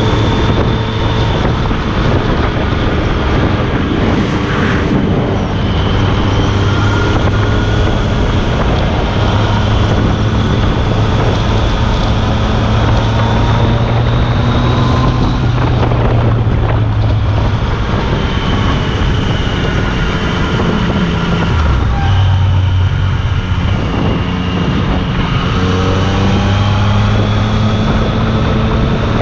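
Yamaha FZ-09's inline three-cylinder engine running through an Akrapovic carbon-fiber exhaust while the bike is ridden at easy speed. The note rises and falls gently with the throttle, with a brief dip about 22 seconds in.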